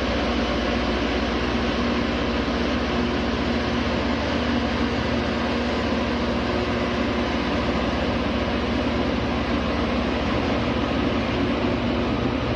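Loram rail grinder's diesel power car running as the train rolls slowly past, a loud steady drone with an even hum.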